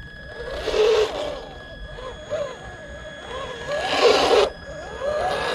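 1/10-scale HG P407 Toyota Hilux RC crawler's electric motor and gearbox whining as it crawls over dirt, the pitch rising and falling with the throttle. It gets louder in bursts about half a second in, around four seconds in and near the end.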